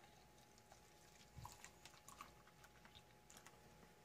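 Near silence, with faint crinkles and small ticks as a thin drink is poured from a ration pouch into a glass. There is one soft thump about a second and a half in.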